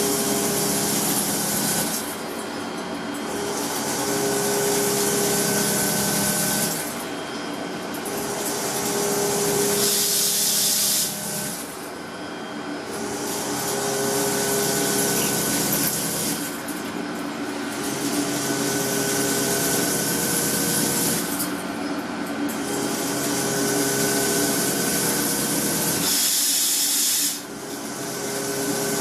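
Gear-making machine tools running: a steady hum with a loud hiss laid over it. The sound changes abruptly every four or five seconds, with the hiss dropping away for about a second each time.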